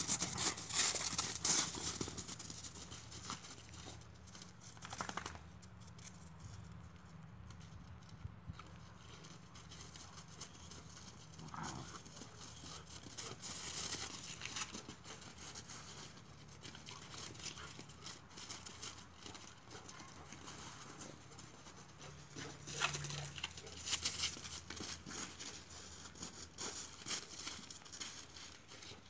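Two boxer dogs' paws crunching and scuffling on crusted, icy snow as they wrestle and run. The crunching comes in flurries, loudest in the opening seconds, with more about halfway through and again near the end.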